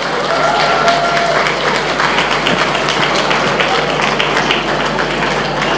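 Audience applauding: a steady wash of many hands clapping, with a short held tone near the start.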